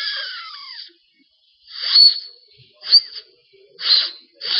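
A boy blowing breathy whistles through his fingers at his mouth: five hissing blasts with a thin whistle on top, roughly a second apart. The first is longer with a falling pitch; the loudest come about two and three seconds in.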